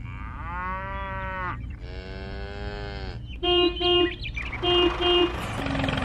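Two long cow moos, followed by short flat beeping tones, four and then two, over a steady low hum.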